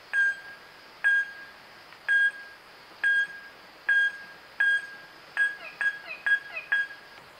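Wahlberg's epauletted fruit bat calling: a short, high, beep-like ping repeated about once a second, speeding up to two or three a second about five seconds in, ten notes in all. Fainter sliding notes overlap the quicker run.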